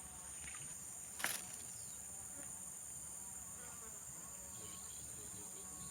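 Steady, high-pitched drone of insects calling, with one sharp click a little over a second in.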